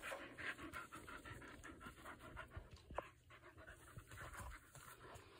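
A dog panting softly, with a single light click about three seconds in.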